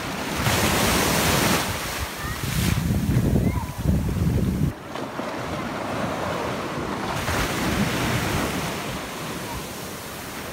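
Small waves breaking and washing up the sand at the water's edge. Wind rumbles on the microphone in gusts through the first half, then eases off abruptly a little before the middle.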